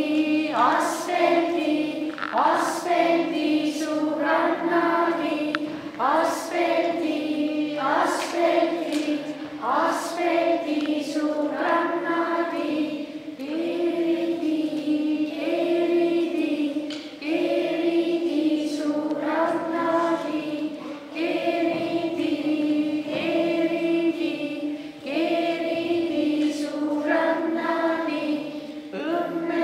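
A group of young children singing a song together in unison, in short repeated phrases.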